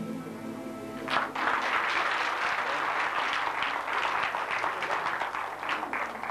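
An audience applauding at the end of a choir's song. The applause breaks out about a second in, after the choir's last sung note dies away.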